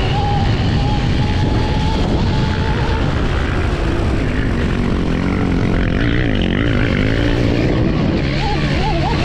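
Electric dirt bike's QS138 brushless motor and gear reduction whining under way, its pitch wavering up and down with throttle and speed, over a steady rush of noise.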